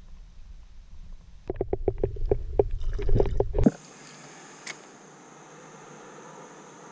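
Low wind rumble on the microphone, then about two seconds of quick, irregular knocks and thumps on the plastic kayak deck that cut off abruptly, followed by a steady faint hiss.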